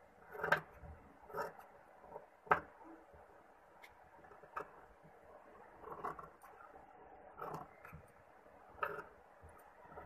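Scissors cutting through layered blouse fabric, lining and stiff buckram, about seven short snips at irregular intervals.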